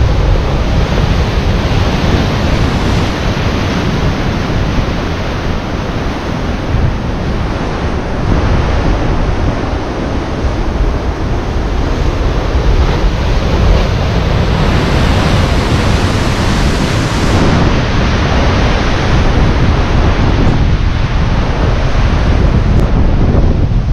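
Sea surf washing against the shore, a steady loud noise, with wind buffeting the microphone.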